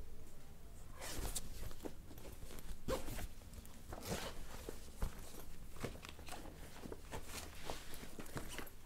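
Cloth rustling and scraping as a hand rummages in a fabric bag, a string of irregular soft scuffs with a sharper knock about five seconds in.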